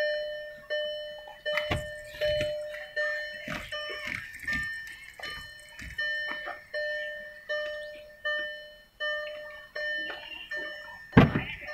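Hyundai Grand i10 Nios's warning chime dinging over and over, about four dings every three seconds, each one fading out. Scattered knocks and taps sound over it, the loudest a thump near the end.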